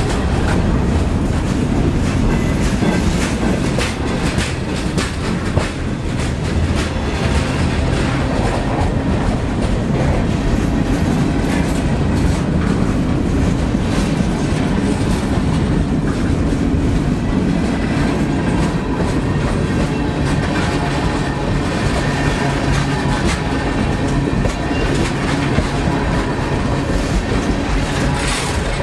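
CSX freight train's cars (covered hoppers, a gondola and tank cars) rolling past at close range: steel wheels clicking over the rail joints above a steady rumble of the cars.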